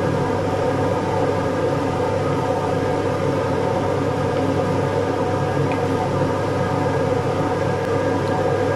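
Steady whirring hum of a kitchen appliance fan, with several constant tones over an even rush of air.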